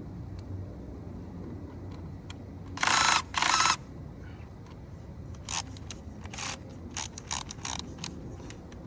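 Screw gun run in short bursts backing out screws: two longer bursts about three seconds in, then a string of shorter ones.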